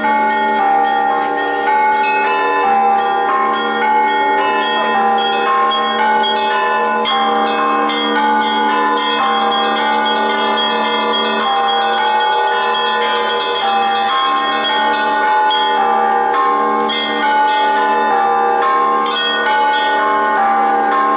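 Orthodox church bells ringing the festive Easter peal: a steady low hum runs beneath many higher bells struck one after another without pause.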